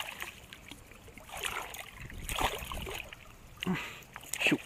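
Water splashing as a hooked smallmouth bass thrashes at the surface and a hand grabs at it. There are several separate splashes about a second apart.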